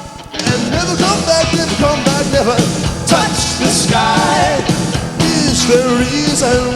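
Rock band of bass, violin, electric guitar and drums playing live in an instrumental passage, with a short break in the sound just at the start.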